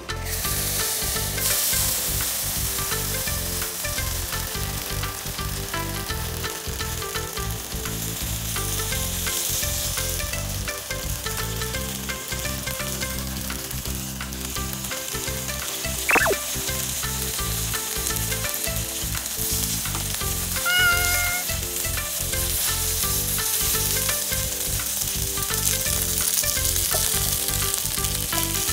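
Gyoza frying in oil in a nonstick pan, a steady loud sizzle that grows louder about a second in as the lid comes off. The water and rice-flour slurry is cooking off into a crisp lacy crust.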